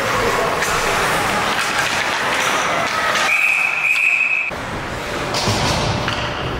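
A referee's whistle blown once, midway through, as a single steady high tone lasting about a second, over the constant background noise of an ice rink.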